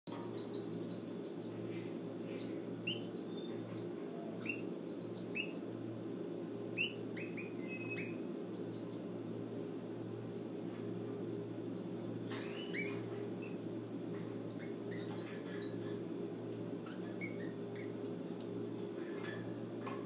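Canary chicks cheeping in the nest: rapid trains of thin, high-pitched chirps with short downward-sliding calls mixed in, busiest for the first ten seconds or so and then thinning out. A steady low hum runs underneath.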